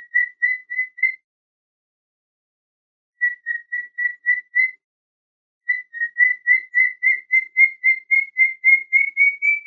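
Cockatiel chirping: short, even whistled chirps at about three or four a second, in three runs separated by pauses of a second or two. The last and longest run rises slightly in pitch toward the end.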